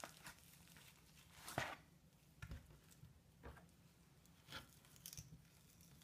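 Near silence with a handful of faint, scattered taps and soft handling noises from a knife cutting raw chicken breasts on a plastic cutting board.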